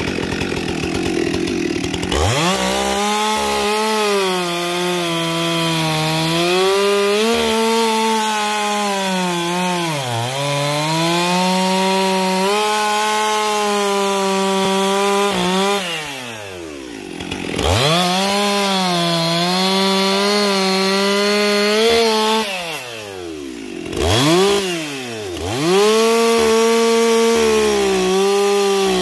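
Stihl chainsaw bucking locust logs, the engine held at high revs in the cut. It revs up about two seconds in, sags and recovers several times, and drops briefly toward idle a little past halfway and twice more near the end before picking up again.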